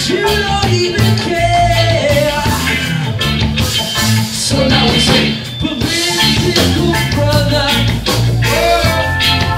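Live reggae band playing: a man singing the lead melody over electric guitar, keyboard and a steady low bass line.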